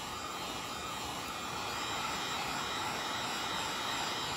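Electric heat gun running, a steady rush of blown air.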